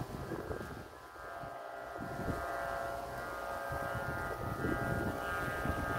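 Kite flutes (sáo diều) on flying kites, droning as several steady tones held together, under wind buffeting the microphone.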